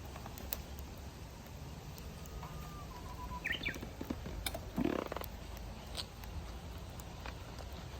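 Wood fire burning in a Snow Peak Takibi-dai L fire stand: irregular sharp crackles and pops over a steady low rumble. A few short chirps near the middle, and a brief louder rush about five seconds in.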